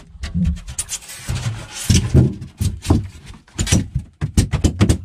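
Foam ice chest lid being swung shut and pressed down by hand, with rubbing of foam on foam and a quick run of knocks and thumps in the second half.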